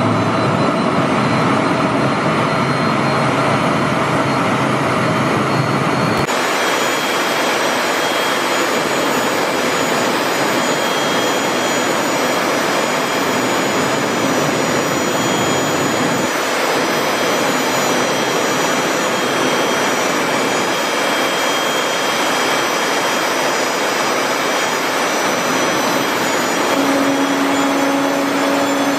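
GE LM2500 gas turbine running steadily: a loud jet roar with high whine tones over a broad hiss. About six seconds in, the sound switches from the muffled, rumblier roar heard in the control room to the close-up sound beside the compressor case, hissier and whinier with less rumble. A steady low hum joins near the end.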